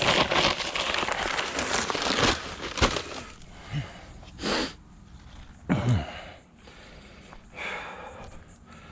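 Dry concrete mix pouring and rustling out of a paper bag into a post hole for about the first two seconds. After that come scattered short rustles and a few dull knocks.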